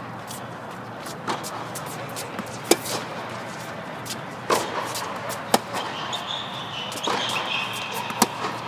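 Tennis ball being struck by rackets and bouncing on the court during a baseline rally: sharp pops about every second or two, the loudest a little under halfway through.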